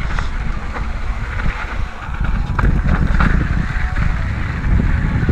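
Ibis Mojo HD4 mountain bike riding over a rough dirt trail. Steady low wind buffeting on the camera microphone with rolling tyre noise and scattered knocks and rattles from the bike.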